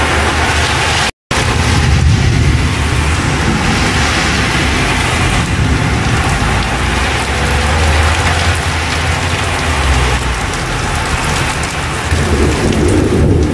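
Heavy thunderstorm downpour: a loud, steady hiss of rain pouring onto pavement, with an uneven low rumble underneath. The sound cuts out completely for a moment about a second in.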